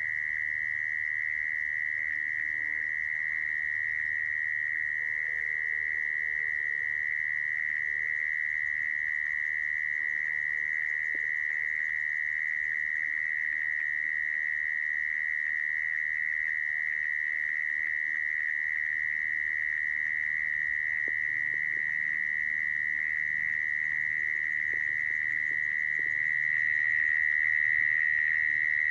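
Mole cricket calling song, used as a lure for trapping mole crickets: one continuous, steady high-pitched trill on a single pitch, a little louder near the end.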